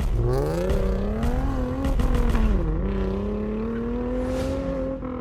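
Car engine revving hard under acceleration. Its pitch climbs, drops sharply a little under three seconds in as if at a gear change, then climbs slowly again.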